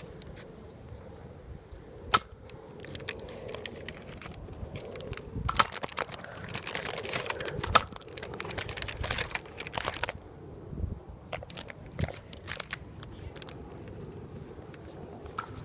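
Nerf foam-dart blasters firing, with sharp pops and clicks scattered through. The loudest come about two, five and a half and eight seconds in, and there is a busier run of them in the middle.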